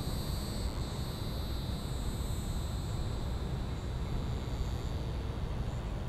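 Neocicada hieroglyphica cicada calling in a continuous high buzz, over a low steady rumble.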